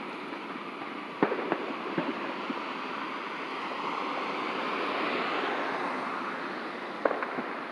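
A vehicle passing on the road: a whooshing sound that rises to a peak about five seconds in and then fades. A few sharp clicks and knocks come about a second in, at two seconds and near the end.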